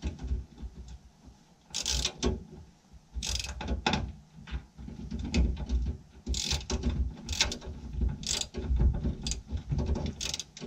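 Hand ratchet clicking in short, irregular runs as it drives a self-tapping screw through the parcel tray's mount into the bus's sheet metal, with low knocks of handling between strokes.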